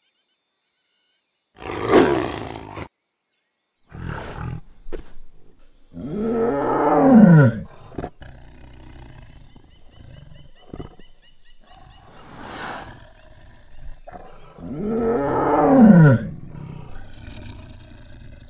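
Tiger roaring several times. The two loudest roars, about six and fifteen seconds in, are long calls that fall in pitch, and a shorter roar comes about two seconds in.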